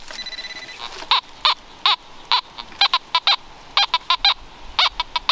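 A bird calling: a rapid series of about a dozen short, loud calls, each bending up and then down in pitch, starting about a second in.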